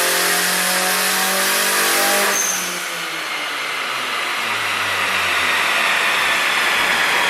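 Turbocharged car engine held at high revs under load, then let off a little over two seconds in, the revs winding down steadily afterwards.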